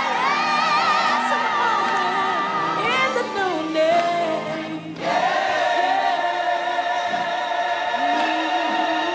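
Gospel singing by a large women's choir with a solo voice at the microphone. Wavering sung lines give way to a short break about five seconds in, then a long held note.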